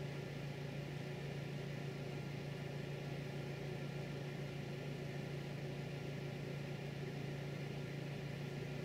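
A steady low hum with no change in pitch or level, like a motor or fan running in the background.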